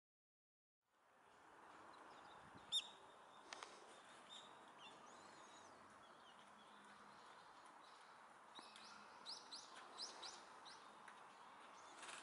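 Short, high chirping calls of a Japanese white-eye, one sharp call about three seconds in and a quick run of chirps around the nine-to-ten-second mark. Under them is a steady faint hum of outdoor background noise, which starts about a second in.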